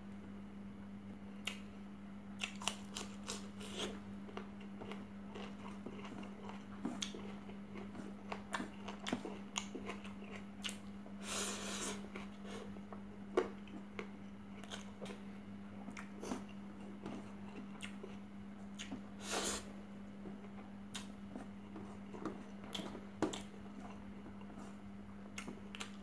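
A person eating rice and chicken by hand: close chewing with many scattered small clicks and smacks as rice is scooped from a metal tray and taken into the mouth, with two short hiss-like noises, one about halfway through and one about three quarters in. A steady low hum runs underneath.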